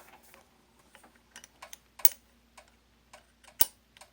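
Irregular sharp metallic clicks and ticks as the hand wheel of a Singer 15-91 sewing machine is wiggled and turned on its shaft to seat it flush, two of them noticeably louder, about two and three and a half seconds in.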